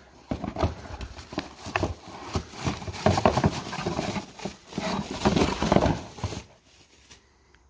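Bubble wrap crinkling and rustling and a cardboard box being handled as a coolant pipe is unwrapped. It is a dense run of crackles and knocks that stops about six and a half seconds in.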